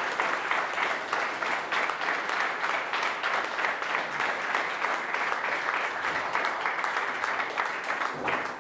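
Audience applauding, a dense steady clapping that begins to fade away near the end.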